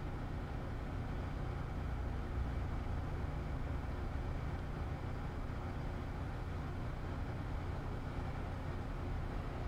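Steady low background rumble with no distinct clicks or knocks.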